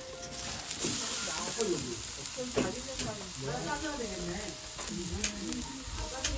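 Pork belly sizzling on a hot barbecue grill, a steady hiss, with a few sharp clicks of utensils.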